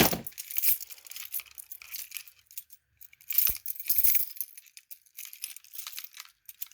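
Handling noise of light clinks, crackles and rustles. A sharp knock comes at the start, and a few more knocks about three and a half to four seconds in.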